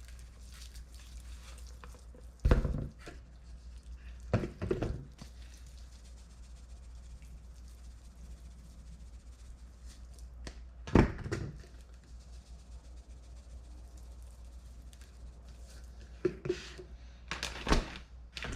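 A few short, separate knocks and thumps of seasoning containers and chicken pieces being handled on a kitchen counter, over a low steady hum.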